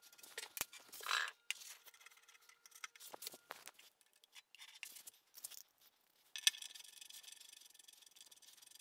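Faint metallic clicks and short scrapes of a steel bolt and nuts being handled and threaded into the corner bolt hole of a cast-iron milling machine base, with a sharper click about two-thirds of the way through.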